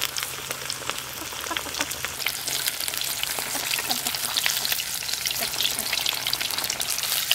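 Breaded chicken pieces deep-frying in refined oil in a steel kadai: a steady, dense sizzle and crackle of bubbling oil, with a steel spatula moving the pieces.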